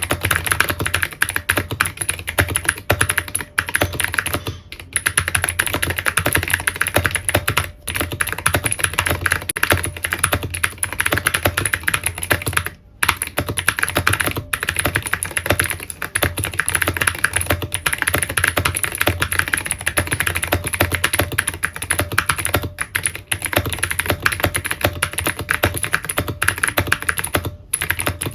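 Fast continuous typing on a mechanical keyboard with clicky Cherry MX Blue switches, a dense stream of key clicks broken by a few short pauses.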